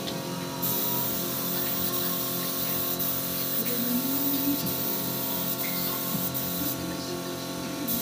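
Spray gun hissing as a wood finish is sprayed on in a long pass, starting about half a second in, cutting off near the end and starting again just before it finishes.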